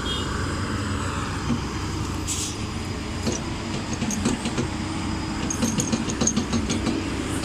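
Heavy diesel earthmoving machinery running steadily, with a quick series of metallic clicks and clanks over the second half.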